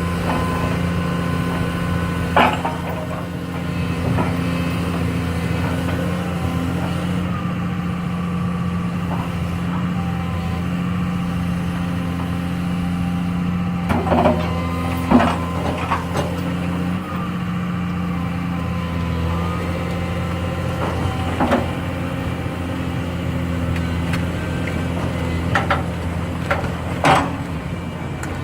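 Excavator's diesel engine running steadily under working load, its hydraulic tones shifting as the machine works. A few sharp knocks and clanks stand out, the loudest about halfway through and near the end, as logs are handled onto the log truck.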